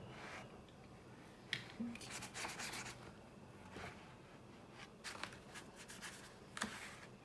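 Paintbrush rubbing across rough-grained handmade watercolour paper in a few short strokes, with pauses between them.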